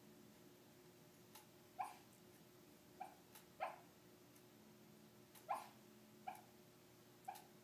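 Sleeping Yorkshire terrier giving about six short, faint barks at uneven intervals, the soft sleep-barking of a dog that may be dreaming.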